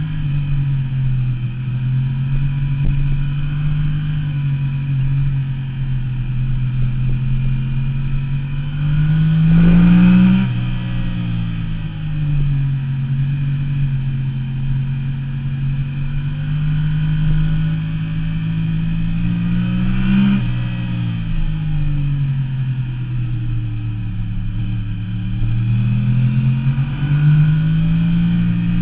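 Stock-exhaust 2009 Yamaha R1's crossplane inline-four engine, heard from a camera on the bike at speed. The engine note climbs under acceleration to a peak about ten seconds in and falls away sharply. It then holds steady, climbs and drops again around twenty seconds, and rises once more near the end.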